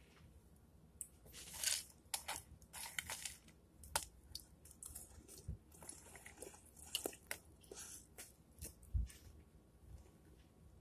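Someone chewing a mouthful of crunchy breakfast cereal close to the microphone: a scatter of short, irregular crunches and clicks.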